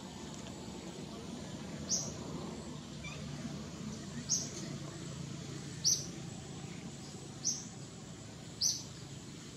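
Short, high-pitched animal calls, five of them, repeating about every one and a half seconds over a low steady background.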